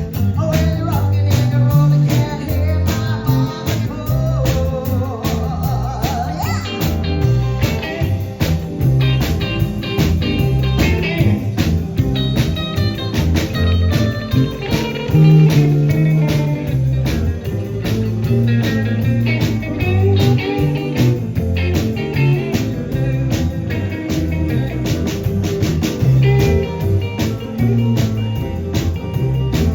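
Live rock and roll band playing: electric guitar over a walking bass and a steady drum beat, with a bent, wavering guitar note about six seconds in.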